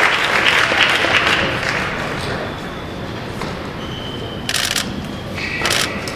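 Spectators' applause tailing off over the first couple of seconds. In the quieter hall that follows, a few short, sharp sounds from play on the badminton court come in the second half.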